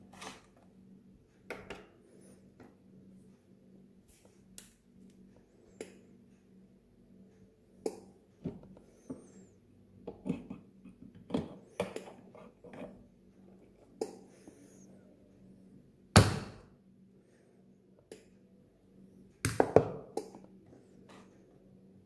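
Scattered clicks, taps and knocks of home espresso gear being handled: buttons pressed on a digital coffee scale and an espresso machine's portafilter gripped and worked. Two louder thumps come about 16 and 20 seconds in.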